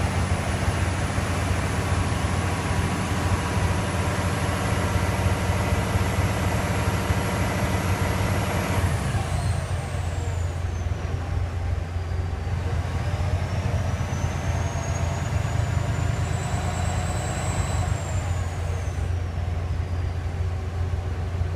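Cummins ISX 530 inline-six diesel running, with a high-pitched turbocharger whistle over the engine's low rumble. The whistle holds steady for about nine seconds, then falls in pitch, rises again and falls once more near the end: the weird turbo sound the owner is showing.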